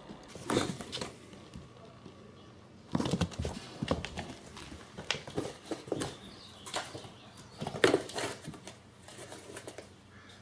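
Irregular soft knocks and scuffles as a kitten gnaws and tugs at a shoe, in bursts with short quiet gaps between.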